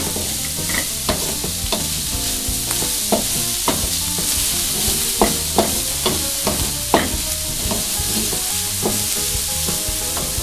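Diced carrot and minced chicken sizzling in butter in a metal wok, stirred with a wooden spatula that scrapes and knocks against the pan at irregular intervals.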